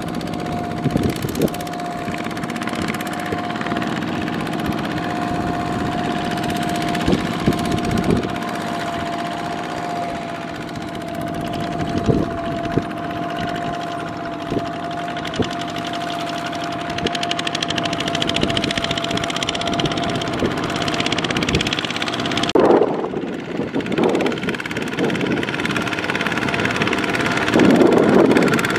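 Two-wheel walking tractor's single-cylinder diesel engine running steadily under load as its wheels churn through paddy mud, with a few sharp knocks in the first half.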